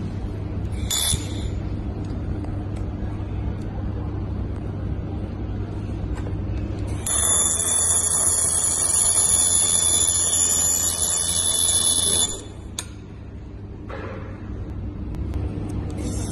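Handheld fiber laser welder welding thick iron: about seven seconds in, a hiss with a steady high-pitched whine starts, runs about five seconds and cuts off sharply. A steady low machine hum runs underneath throughout.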